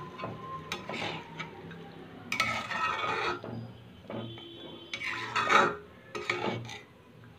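Metal spatula stirring and scraping a thick pigeon-and-coconut curry around a metal kadai, in irregular strokes. The loudest scrapes come about two and a half seconds in and again at about five and a half seconds.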